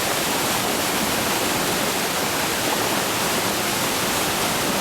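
Waterfall rushing: falling water making a steady, even noise with no change in level.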